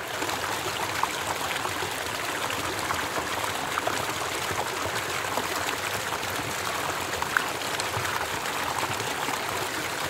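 A shallow, rocky creek flowing over stones and rock ledges: a steady rush of running water with small splashes throughout.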